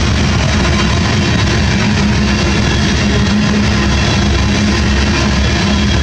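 Freight train of tank cars rolling past, a steady loud rumble and rattle of steel wheels on rail with no let-up.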